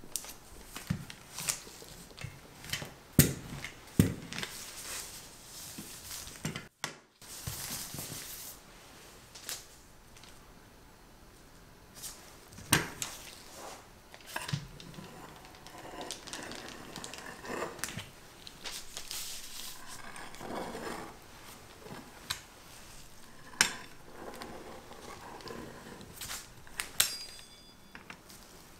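Pie dough being handled and cut into thin strips along a steel ruler: scattered light clicks and taps of the ruler and tools on the work surface, with soft scraping of the cutter through the dough.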